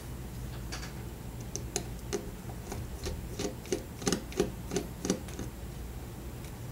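A run of small, sharp clicks and taps, about a dozen, bunched in the middle few seconds: a small screwdriver working the two screws out of a Samsung Infuse i997 phone's frame.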